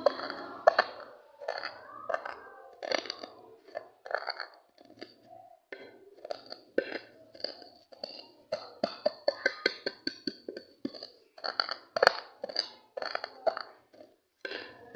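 Sunflower seeds being crushed and ground by hand: irregular crunching and scraping strokes, several a second, with a couple of short pauses.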